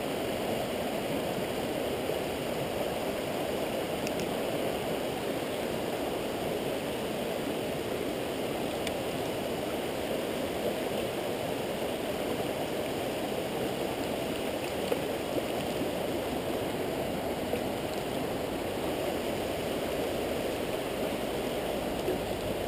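Shallow mountain river running over stones in riffles: a steady rush of flowing water, with now and then a faint tick.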